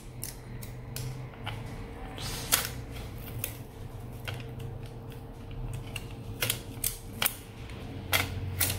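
Scattered small clicks and taps of a screwdriver and metal parts as the screws of a laptop CPU heatsink are undone and the heatsink is lifted off the motherboard, about a dozen at irregular intervals. A faint steady hum lies underneath.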